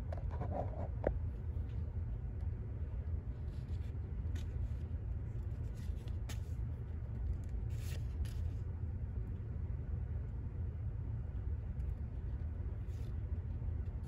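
Baseball trading cards being handled: a few faint, short slides and clicks as cards are moved one by one through a hand-held stack, over a steady low background hum.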